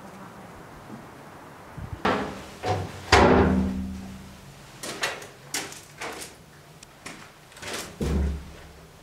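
White slatted metal doors being unlatched and pushed open: a series of clanks and rattles starting about two seconds in, the loudest followed by a brief ringing tone, then scattered knocks and bangs as the leaves swing out.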